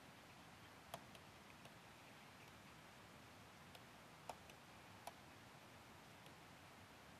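Faint taps and clicks of a stylus on a tablet writing surface during handwriting, over a quiet hiss. Three sharper clicks stand out, about a second in and around four and five seconds in.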